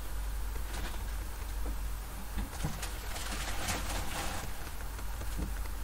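Faint, scattered taps of computer keyboard keys, with a quicker run of taps about halfway through, over a steady low hum.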